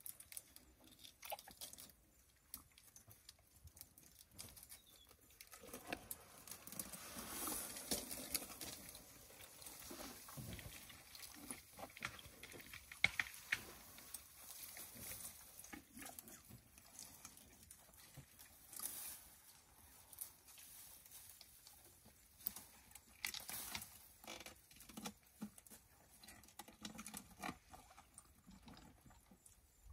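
Elephants browsing in dry grass and bush: quiet, irregular rustling, crackling and snapping of twigs and leaves as they pull and strip vegetation and chew.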